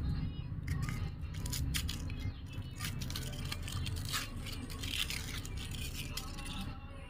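Crinkling and crackling of a foil-and-paper wrapper being torn and peeled off a round firecracker by hand, in many quick rustles.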